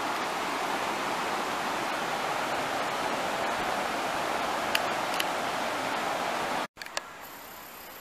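Steady rush of water flowing over the rocks of a shallow river, with two small clicks about five seconds in. It cuts off abruptly near the end, giving way to a quieter background with a faint high whine.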